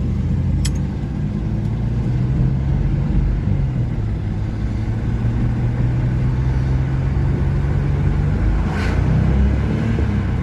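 A 1989 Chevy S10 Blazer's 4.3 V6 engine pulling under acceleration, heard from inside the cab. Its note holds steady for several seconds and then changes about two seconds before the end, as the TH700-R4 automatic goes from second to third with the revs flaring: the transmission slips on the 2–3 shift, which the owner thinks could be a solenoid, worn clutches or low line pressure.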